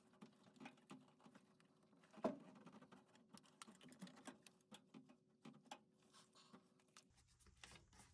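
Faint, irregular clicks and taps of tools and parts being handled during work on a washing machine, with one louder knock about two seconds in. A faint steady hum underneath cuts off about seven seconds in.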